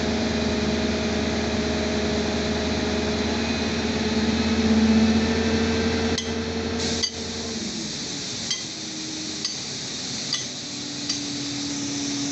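Diesel engine of a Fuso crane truck running steadily, rising slightly in pitch around five seconds in, then dropping away abruptly. Sharp metal clinks from the crane's hook and chain rigging follow, about once a second.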